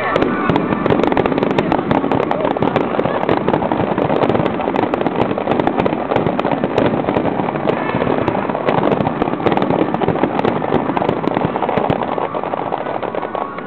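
Fireworks crackling in a dense, continuous barrage of many rapid pops.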